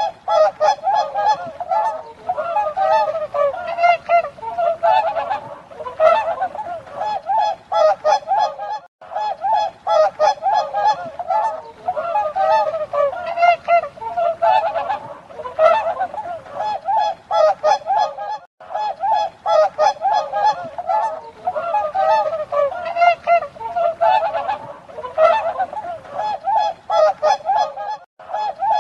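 Swans honking: a steady stream of short, overlapping honks, broken by brief gaps three times.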